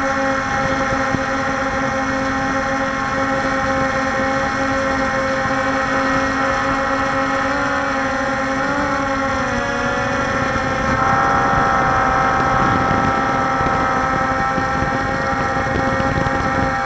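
Walkera Scout X4 quadcopter's electric motors and propellers droning, picked up by the camera on board. The pitch of the drone wavers about 8 seconds in and then settles slightly higher and louder a few seconds later, as the motors change speed.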